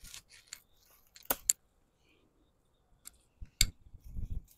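Garden shears or scissors clicking shut several times on the ash gourd vine, with the two loudest snips about a second and a half in and another near the end, followed by a short low rustle of handling.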